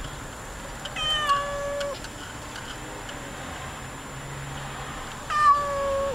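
Domestic cat meowing twice, about four seconds apart. Each meow is long, dipping in pitch at the start and then holding steady.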